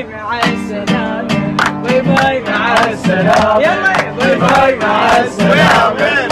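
Acoustic guitar strummed as accompaniment to a man singing an Iraqi pop song; from about halfway other voices join in, singing along.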